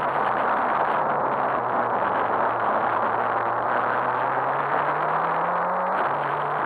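Volvo 240 Turbo rally car heard from inside the cabin: the engine pulls with its pitch rising slowly, then drops suddenly near the end, under a heavy hiss of road and wind noise.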